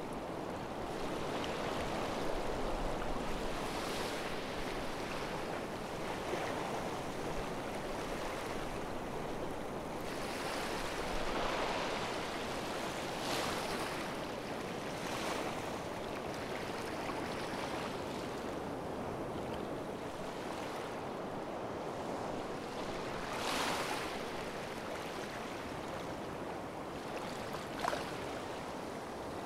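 Sea surf washing onto a beach: a steady wash of waves with a few louder swells as they come in, and one brief tap near the end.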